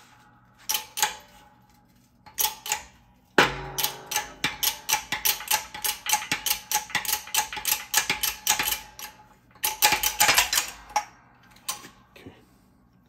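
Hydraulic shop press pushing a bearing off a Triumph TR6 differential shaft. A few scattered clicks, then a sudden loud crack about three and a half seconds in, followed by a fast run of sharp metallic clicks, several a second, that stops about eleven seconds in.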